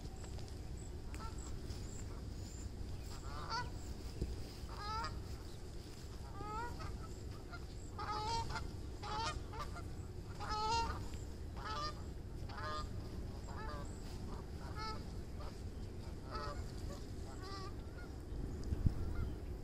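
A flock of Canada geese on the water honking: about a dozen short calls, roughly one a second, starting a few seconds in and stopping near the end, over a low steady rumble.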